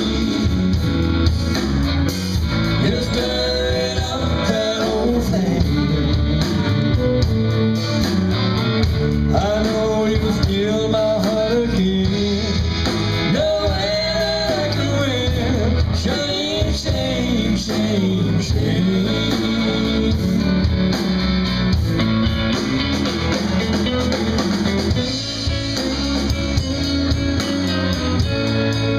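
Live country-rock band playing: electric guitars, bass guitar and drums, with vocals over them.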